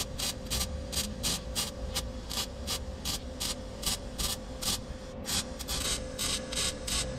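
Electric arc welder crackling in short, rapid, regular bursts, several a second, under a steady hum. It is stitch-welding a patch over an exhaust leak hole in a thin, rusty exhaust pipe.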